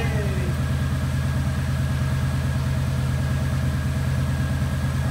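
Kawasaki Vulcan 1700 Vaquero's V-twin engine idling steadily, running on its newly reflashed ECU and fresh battery.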